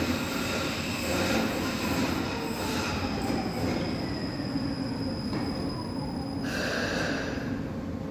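Stuttgart Stadtbahn light-rail train running into an underground station and slowing, with steady rail noise and whines falling in pitch as it slows.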